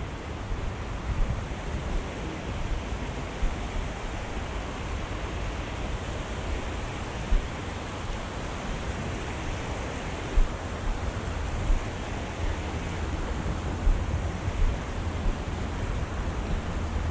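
Steady rushing noise of wind buffeting the microphone together with the flow of a shallow river over stones, with a deep rumble underneath and a few brief soft thumps.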